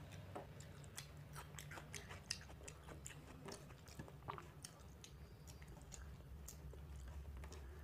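Faint close-miked eating sounds: scattered small wet clicks and smacks of fingers working watery fermented rice (panta bhat) in a steel plate, with chewing. Two sharper clicks stand out, about two and four seconds in.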